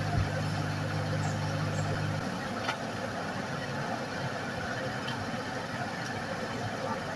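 A steady low electrical hum from the repair bench that cuts off abruptly about two seconds in, over a steady hiss of running bench equipment, with a couple of faint clicks.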